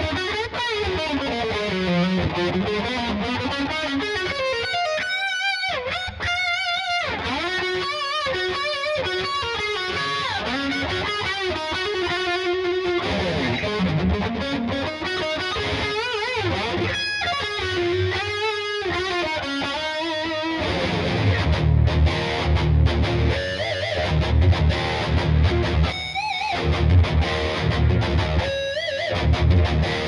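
Gibson Les Paul Tribute '70s electric guitar played with a distorted tone: a lead line of single notes with string bends and vibrato, then from about two-thirds through, heavy low rhythmic riffing.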